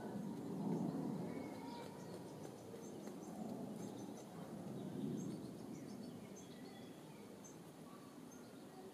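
Steady low outdoor background rumble, louder about a second in and again about five seconds in, with scattered short, faint, high chirps and peeps of small birds.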